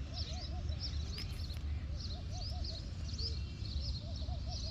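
Birds calling: many short high chirps throughout, with a lower call of three or four quick arched notes repeating about every second or two, over a steady low rumble.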